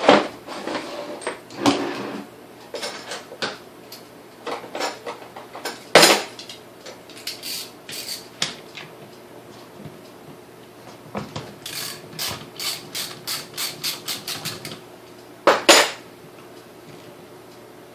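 Hand tools clicking and knocking against the metal body of a Sunbeam Mixmaster Model 9 stand mixer as its back end is taken apart. There are two louder knocks, one about six seconds in and one near the end, and a run of quick, even clicks, about three a second, starting a little past the middle.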